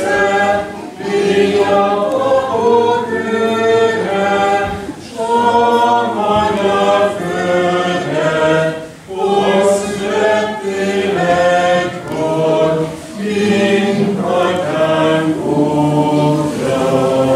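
A group of voices singing a song together unaccompanied, in phrases about four seconds long with brief breaks between them.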